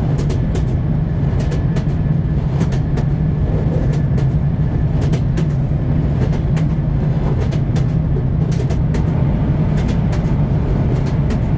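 Train wheels clacking over rail joints: a steady low rumble with sharp clicks that come in small clusters every second or so.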